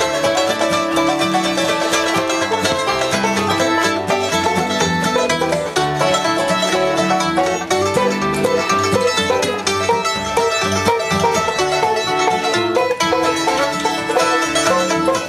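Bluegrass band playing a fast instrumental passage on mandolin, banjo and upright bass fiddle, with a continuous stream of rapidly picked notes.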